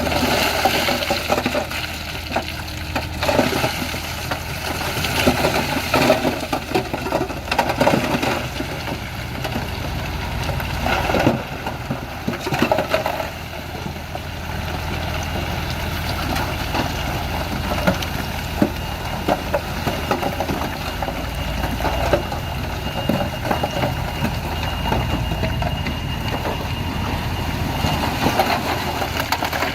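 Heavy diesel engine of a construction vehicle running steadily at low revs, with irregular knocks, clanks and crunching over it, busiest in the first half.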